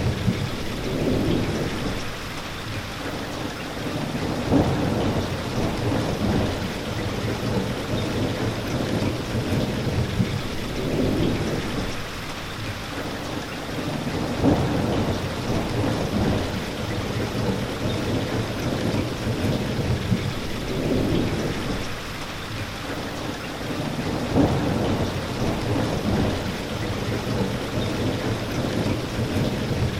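Steady rain falling, with low rolls of thunder swelling and fading every few seconds.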